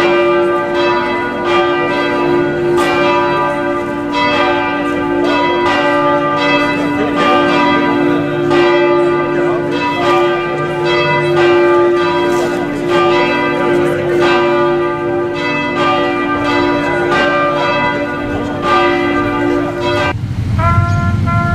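Church bells ringing in a steady succession of strokes, the tones overlapping and hanging on. About twenty seconds in the bells stop abruptly and a trumpet begins playing a call.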